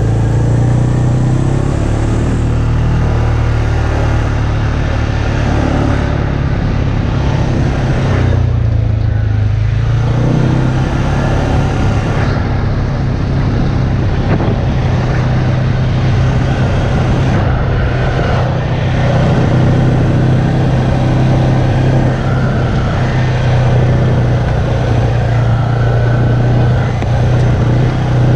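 ATV engine running steadily as the quad rides along a dirt trail, easing off briefly about eight seconds in before picking back up.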